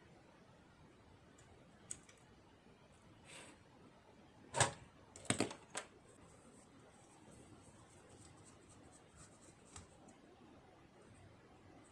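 A few scattered clicks and light knocks of small hard objects being handled, the loudest about halfway through followed by a quick cluster of three, over a quiet room.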